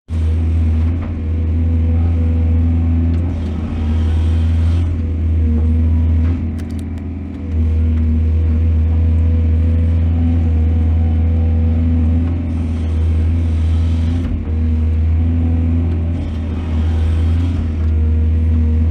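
Large excavator engine running continuously under working load, its low hum steady with a brief drop about a third of the way in, and a few spells of hiss over it.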